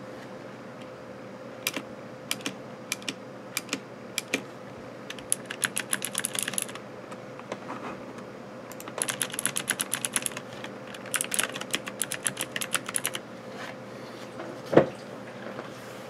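Rosewill K85 mechanical keyboard's Kailh blue switches being typed on: a few separate keystrokes, then three quick runs of rapid typing, clicky but not too loud. A single low thump near the end.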